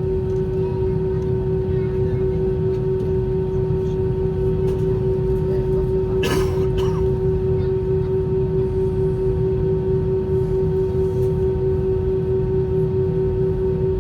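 Airbus A320 cabin noise with the engines at idle: a steady low rumble under a constant mid-pitched whine. There is one brief noise about six seconds in.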